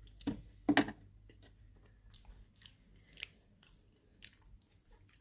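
Close-up chewing of crunchy food, with short crisp crunches about a second apart, after a couple of louder bumps in the first second.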